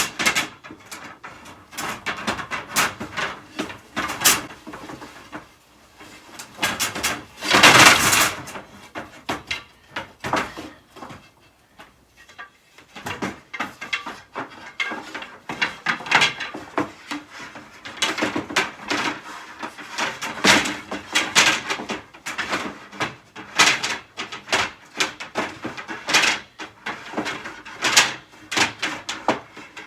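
Wooden bed slats clattering and knocking as they are handled and laid onto an IKEA bed frame, with a longer, louder scraping noise about eight seconds in.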